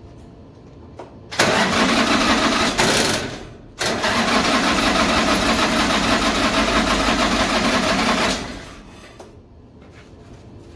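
Motorcycle engine started and run loud in two spells, with a brief dip between them about four seconds in, then dying away near the end.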